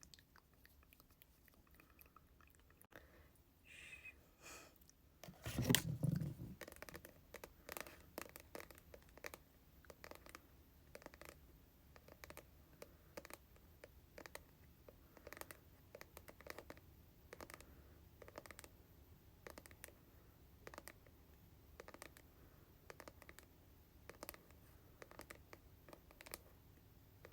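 Slow, light tapping on hair-product containers, a steady series of single taps roughly one to two a second. About six seconds in there is a louder bump as a container is handled.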